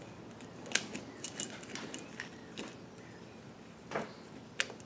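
A steel pry tool scraping and clicking against the roller cage of a worn pinion bearing from a Chevy Suburban rear axle as the cage is broken apart to get at the pressed-on inner race. It makes scattered short metallic clicks and scrapes.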